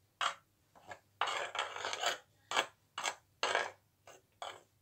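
A hand raking flour and salt around a glazed earthenware dish, fingers scraping through the dry flour and against the clay. The strokes are short and dry and come a couple each second, with one longer stroke about a second in.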